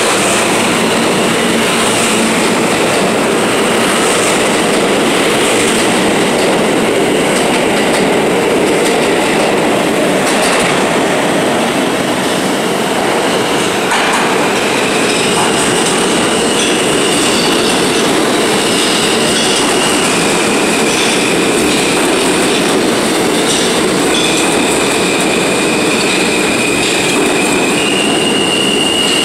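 New York City subway trains running through an underground station, a loud continuous rumble of cars on the rails. Steady high-pitched wheel squeal comes and goes several times.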